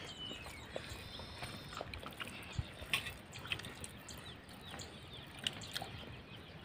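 Quiet outdoor background with scattered soft clicks and ticks: the small sounds of people eating rice and curry by hand off banana leaves. A faint falling chirp comes near the start.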